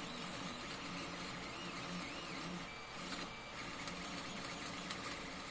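Creality Ender 3 3D printer running a print: a steady whir, with the stepper motors giving short whining tones that rise and fall as the print head moves.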